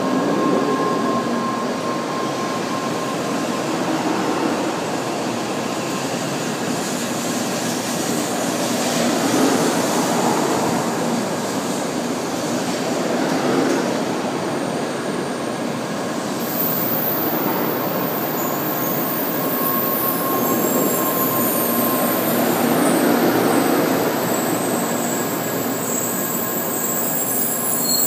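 N700 series Shinkansen train pulling slowly into the platform, its cars rolling past with a steady rumble of wheels and running gear. A thin high-pitched squeal joins about halfway through.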